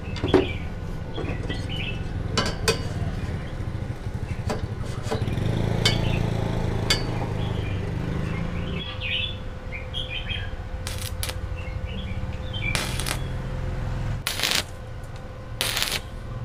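Steel tubing and a metal square being handled on a workbench, with light knocks and clinks over a steady low hum. Near the end, a few short crackling bursts of a stick-welding arc being struck to tack the thin square tube frame. Birds chirp in the background.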